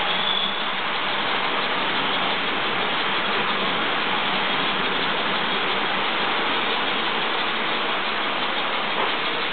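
Model trains running on the layout's track: a steady rolling noise of wheels and motors.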